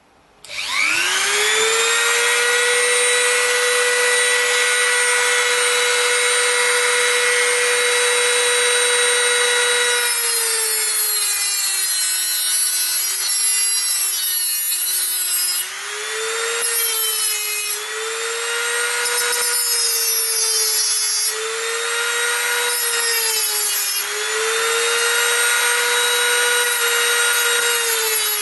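Handheld rotary tool with a cut-off disc spinning up about half a second in to a steady high whine, then from about ten seconds in cutting the metal connector strips of a lithium-ion battery pack, its pitch dipping and recovering repeatedly as the disc bites in and lets go.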